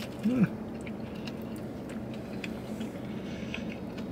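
A person chewing a mouthful of burger: faint, scattered small wet clicks over a steady low hum. About a third of a second in there is a brief hummed voice sound.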